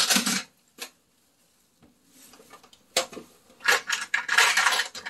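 Small hard makeup containers and tools clattering and clinking as they are rummaged through and moved about: a short burst at the start and a single click, a pause, then a denser run of clatters in the second half.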